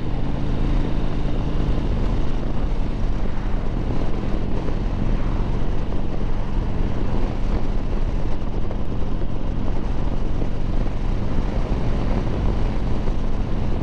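2009 Harley-Davidson Sportster 1200 Low's air-cooled V-twin running steadily at cruising speed, mixed with wind and road noise on the camera microphone.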